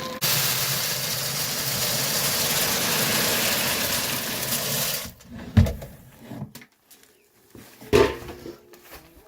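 Dry chicken feed pouring into a garbage-can chicken feeder, a steady rushing hiss that lasts about five seconds and cuts off suddenly. A couple of knocks follow.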